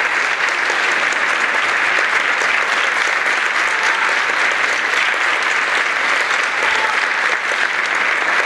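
Theatre audience applauding steadily at the curtain call after a ballet act: dense, even clapping of many hands.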